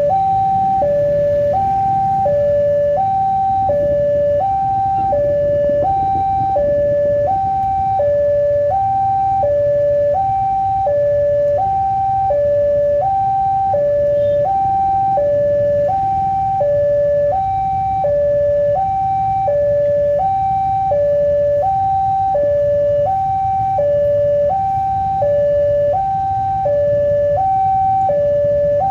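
Electronic railway level-crossing warning alarm sounding continuously, a two-tone high-low alternation with each tone held under a second, signalling that a train is approaching and the gates are closed. Beneath it is a low rumble of idling road traffic.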